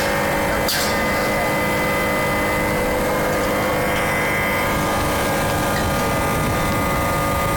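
Steady, loud machine drone of an automatic bag-filling packing machine and its conveyor running, holding several steady tones. Two short sharp noises sound within the first second.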